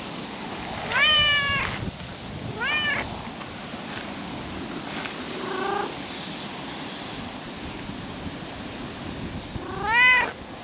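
Calico cat meowing four times, each call rising then falling in pitch. The first and last meows are the loudest, and the third is shorter and lower.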